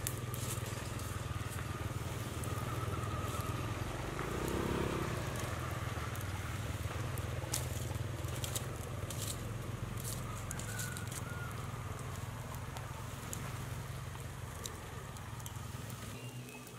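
Outdoor ambience: a steady low rumble with scattered sharp crackles and clicks, and a brief swell of a lower sound about four to five seconds in.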